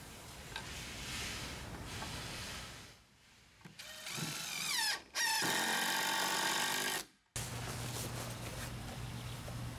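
Cordless impact driver driving screws into pressure-treated lumber: a rising whine about four seconds in as it spins up, then it runs hard for about two seconds, the loudest part. After a cut, a steady low hum.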